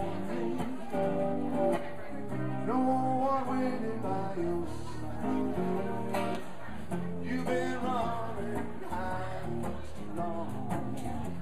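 Live music: a man strumming chords on a hollow-body electric guitar.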